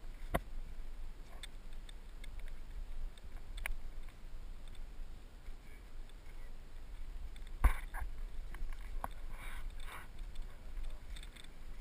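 Scattered clicks and knocks from footsteps and the handheld camera pole, with one sharp knock about two-thirds of the way through. Under them runs a low rumble of wind on the microphone.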